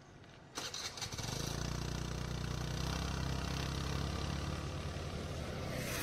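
Motor scooter engine starting about half a second in, then idling steadily.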